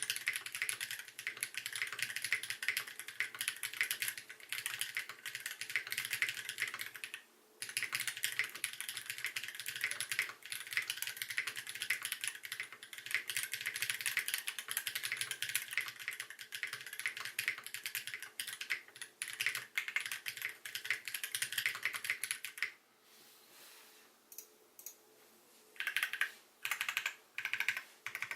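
Mechanical keyboard with lubed Holy Gsus switches on an aluminum plate in a tray-mount case, with Cherry doubleshot keycaps, being typed on quickly in a steady stream of keystrokes. There is a brief pause about seven seconds in. In the last few seconds the typing thins out to scattered single keystrokes and short bursts.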